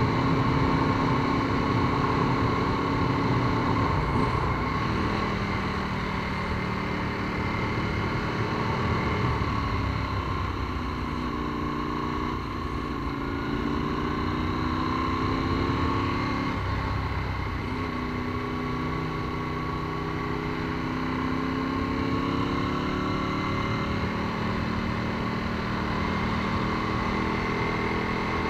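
Ducati 748's 90-degree L-twin engine running under way, its pitch climbing and dropping several times as the rider accelerates, shifts gear and eases off.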